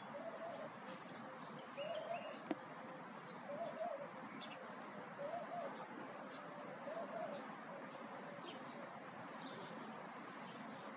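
A dove cooing over and over, one short rising-and-falling coo about every one and a half seconds, with small birds chirping briefly now and then.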